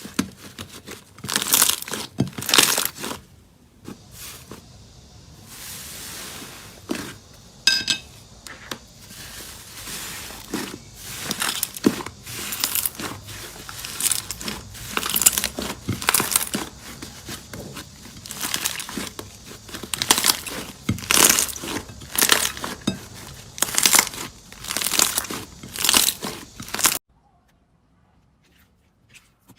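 Slime being squeezed and pressed by hand, giving an irregular string of sharp crackles with a brief squeak about a quarter of the way through. It stops abruptly near the end.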